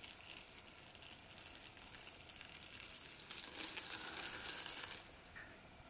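Plastic cling wrap crinkling faintly as it is peeled off a card panel still damp with acrylic paint, growing a little louder between about two and five seconds in.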